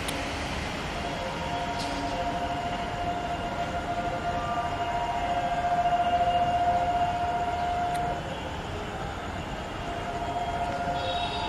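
Railway station ambience with a long, steady train horn held for several seconds, loudest around six seconds in and cutting off about eight seconds in, then sounding again near the end.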